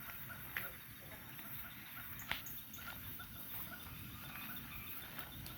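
Large outdoor bonfire of brush and wood crackling, with a few sharp pops, over a faint steady chirping of night insects.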